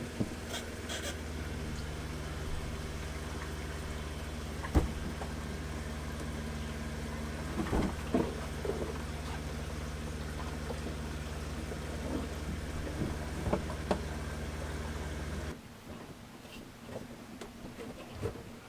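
RV water pump running with a steady low hum while water runs from the hot-water tap for a leak test, with a few knocks; the pump cuts off suddenly about fifteen seconds in.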